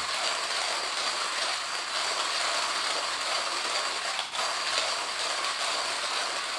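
Timemore Chestnut Slim hand grinder grinding coffee as its crank is turned steadily: a continuous crunching rattle of the stainless steel burrs.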